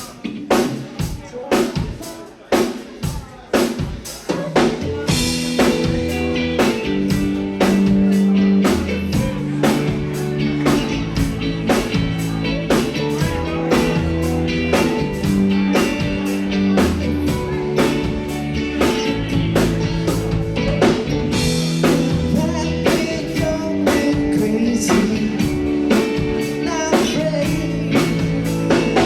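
Live rock band playing: the drum kit alone keeps a beat for the first few seconds, then bass and electric guitars come in with sustained chords about five seconds in, and the full band plays on.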